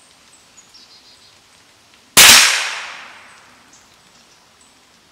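A single shot from a Savage Mark II FV .22 LR rifle firing a CCI standard-velocity round: one sharp crack about two seconds in, with an echo that fades over about a second.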